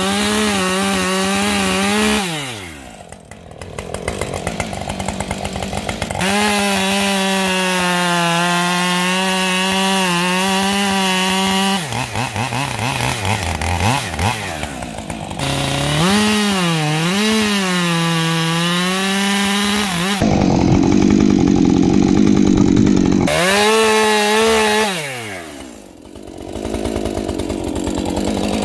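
Two-stroke chainsaw cutting into a tree trunk at full throttle in several passes. Between passes it drops back toward idle, and in one pass the pitch wavers as the chain bogs under load. About two-thirds through there is a stretch of duller, rougher noise.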